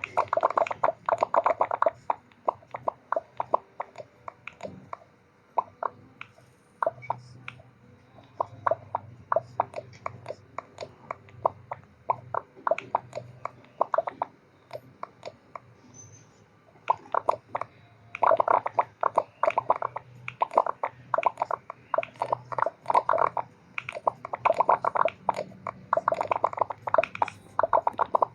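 Rapid sharp clicks, many a second, in bursts lasting a few seconds, over a faint steady low hum.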